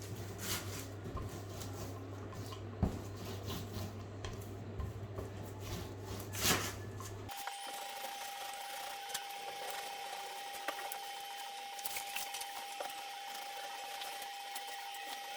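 Paste brush rubbing and swishing across wallpaper on a pasting table as paste is spread out from the middle, with a few light knocks. About seven seconds in, a steady low hum stops suddenly and a faint steady whine takes its place.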